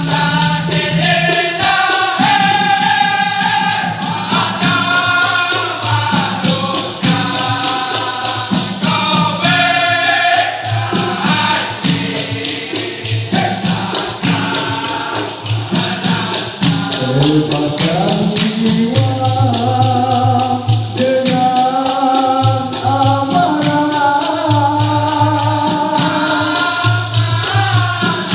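Dikir barat: a male chorus singing loudly together over a fast, steady percussion beat.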